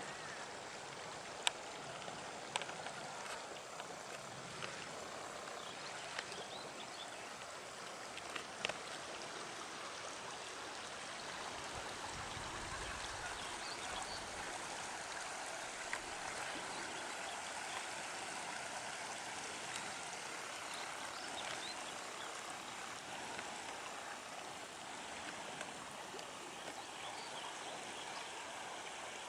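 Steady rushing of flowing water, with a few sharp clicks scattered through it.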